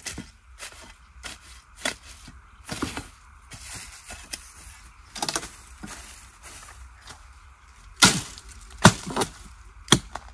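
A blade chopping at a wild bamboo shoot at the base of a bamboo clump, in irregular sharp strikes with pauses between. The loudest blows come about eight and nine seconds in.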